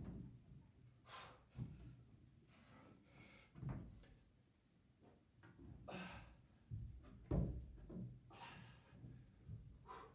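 A climber's hard breathing on a steep bouldering wall: forced exhales about every two seconds, mixed with dull thumps of hands and climbing shoes landing on the holds, the heaviest thump about seven seconds in.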